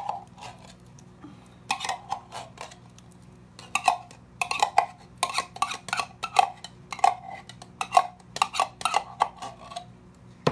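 A metal spoon scraping condensed cream of mushroom soup out of its can into a bowl: a string of short, irregular scrapes and clinks, starting about two seconds in.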